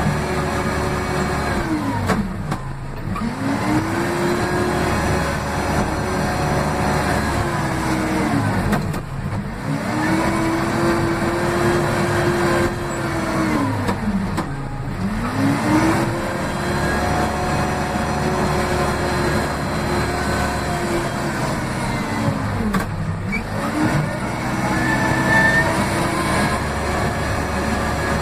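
Case 580M backhoe loader's diesel engine, heard from inside the cab by the throttle, held at high revs. Four times the pitch sags and climbs back up as the revs drop and recover.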